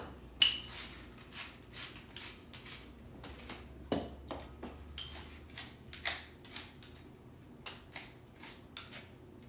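Salt and pepper being ground over vegetables with a hand mill: a run of short scratchy crunches, about two to three a second, with a light knock about four seconds in.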